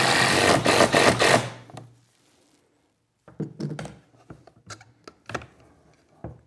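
A cordless drill/driver runs with a fast rattle as it drives a screw into the aluminium T-track on the plywood sled, and stops about a second and a half in. A series of light knocks and clicks follows as the sled is handled.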